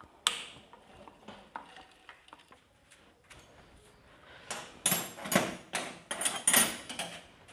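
Hand tools and metal engine parts clinking and scraping as a motorcycle's tappet cover is taken off. There are sparse light taps at first, then a busier run of metallic clatter over the last few seconds.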